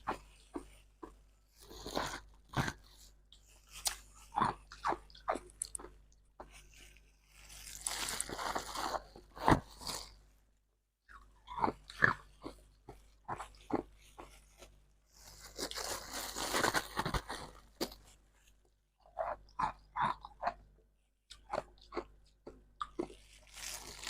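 Soft, crunchy freezer frost being bitten and chewed close to the microphone: clusters of sharp crunches, twice giving way to a longer stretch of dense, continuous crunching as a mouthful is chewed.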